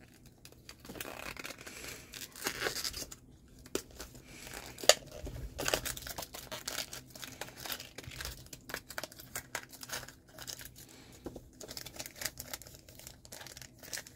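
Crinkling and tearing of small plastic and foil wrappers as mini toy packets are handled and opened, with short sharp clicks in between; the loudest is a single click about five seconds in.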